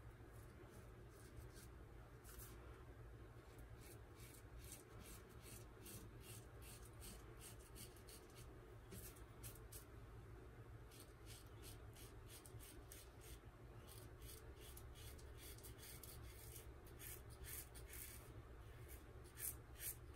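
Gem Micromatic single-edge safety razor with a GEM Professional blade scraping through three days' stubble under lather: faint, crisp rasping strokes in quick runs.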